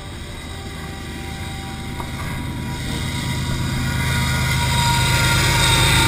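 Canadian Pacific diesel-electric freight locomotive and its train approaching along the track: a steady low engine hum with rail noise, growing steadily louder as it draws close.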